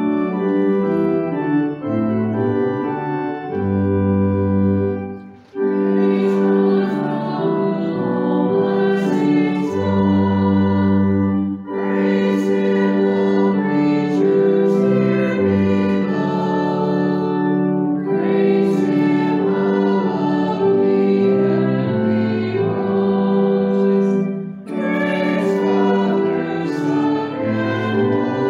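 Organ playing held chords while a congregation sings a slow hymn along with it, with short breaks between phrases.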